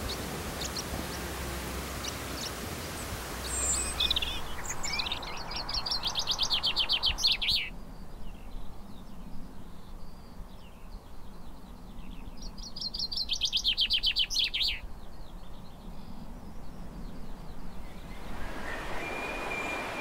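A songbird singing: quick runs of high notes lasting a couple of seconds each, heard twice with a shorter snatch before, over a light outdoor hiss that fades out after the first long phrase.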